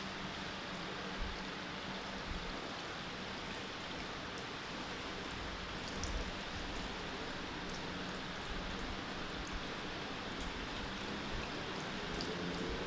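A steady hiss that sounds like rain or running water, with a low hum underneath and faint scattered ticks.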